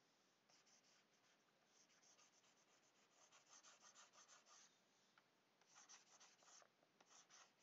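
Faint, quick, repeated short strokes of a stylus nib rubbing across a graphics tablet's surface while brushing in digital shading.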